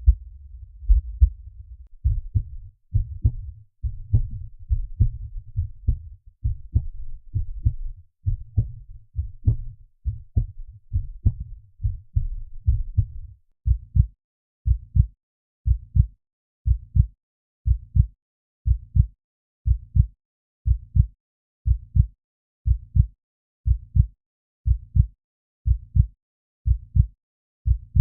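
Heartbeat sound effects played one after another. Low, muffled thumping beats over a steady low rumble, then from about halfway clean, separate beats at about one a second.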